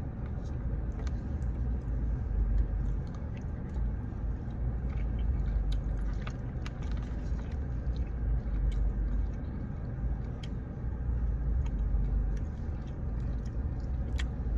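A person biting and chewing jerk chicken close to the microphone, with faint scattered mouth clicks, over a steady low rumble.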